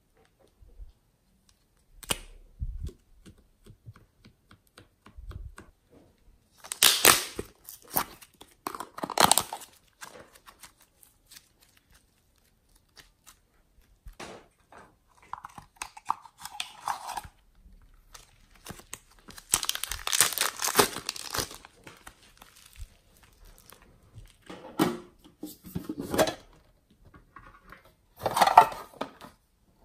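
Close-up handling of glossy slime and clay: sticky tearing and crinkling noises that come in short bursts a few seconds apart. Near the end, a metal tin is handled.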